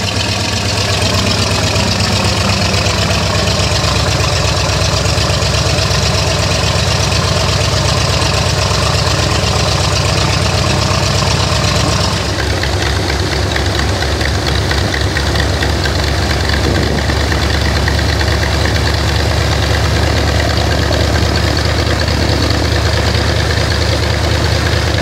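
Jabiru 5100 air-cooled flat-eight aircraft engine idling steadily, turning its propeller. Its note dips slightly in pitch in the first couple of seconds, and the tone shifts a little about halfway through.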